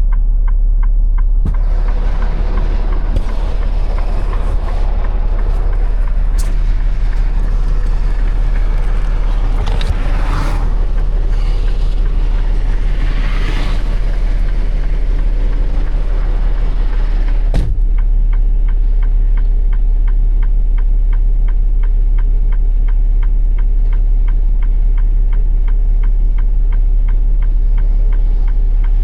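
Loud rushing vehicle noise over a steady low hum, starting suddenly and cutting off with a knock about two-thirds of the way in. After that an even ticking remains, a few clicks a second, typical of a broken-down truck's hazard-light flasher.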